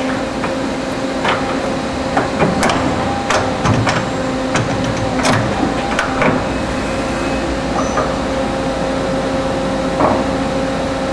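Automatic tool changer of an Okuma & Howa Millac 4VA CNC vertical machining center swapping tools in the spindle: a run of sharp clanks and clicks about two to six seconds in, with one more near the end, over the machine's steady hum.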